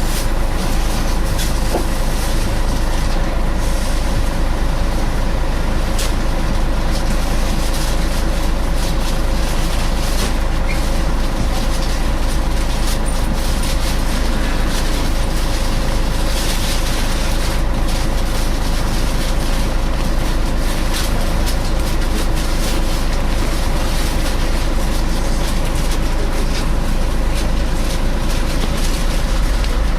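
Scania L113 bus heard from inside while under way: the rear diesel engine and its cooling fan running with a steady, hoover-like whining drone over a constant low rumble.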